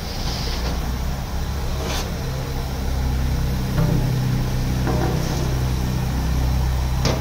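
Steady low mechanical hum, like an idling motor, with two sharp knocks, one about two seconds in and one near the end.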